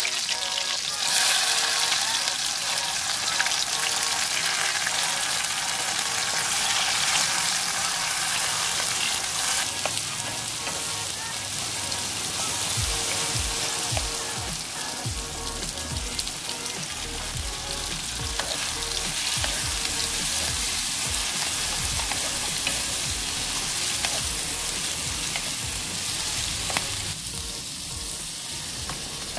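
Chopped onion, tomato and carrot frying in hot oil in an aluminium wok, a steady loud sizzle, stirred with a wooden spatula. Shelled clam meat is tipped in partway through, with soft low thuds as the pan is stirred.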